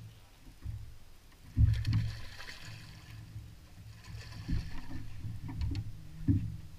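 Dull thuds and knocks from people moving on a bass boat's deck, carried through the hull while an angler fights a hooked smallmouth bass. The loudest thud comes about a second and a half in. A faint hiss comes around two seconds in and again near four seconds.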